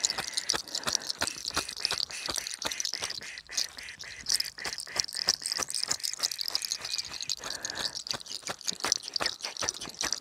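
Hair cracking: a dense, irregular run of small crackles and snaps as strands of hair are twisted and tugged at the roots.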